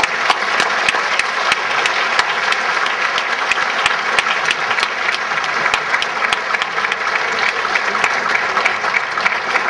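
Audience applauding steadily, a dense patter of many hands clapping that does not let up.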